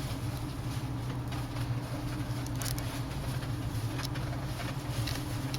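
Steady low electrical hum with a few faint light clicks of small screws and a screwdriver being worked into the tablet's frame.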